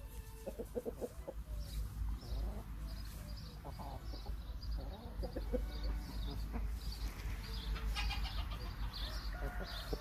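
Brahma chickens clucking in short, repeated calls.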